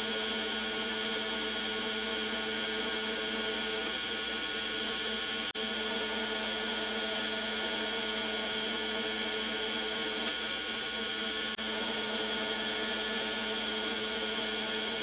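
Metal lathe running steadily under power, geared for thread cutting, with a constant motor and gear-train whine.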